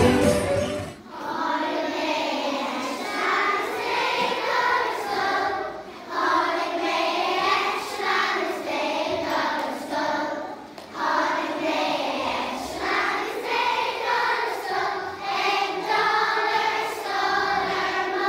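A group of young children singing a song together, phrase after phrase, starting about a second in after fiddle music cuts off.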